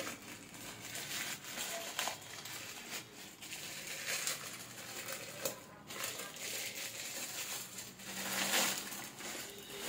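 A plastic courier mailer bag being pulled and torn open by hand: irregular crinkling and rustling of the plastic, with a longer, louder stretch about eight seconds in.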